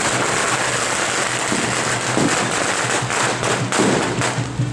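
Firecrackers crackling densely, with sharper separate pops in the last second or two.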